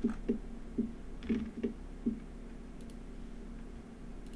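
Computer mouse clicking, about six separate clicks over the first two seconds.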